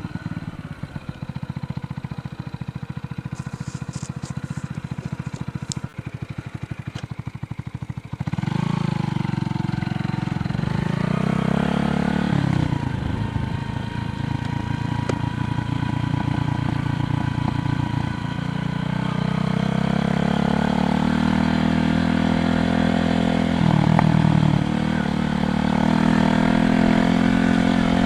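Motor vehicle engines on the road around a moving bicycle. Engines rise and fall in pitch as they pass, getting louder about eight seconds in and again in the last third.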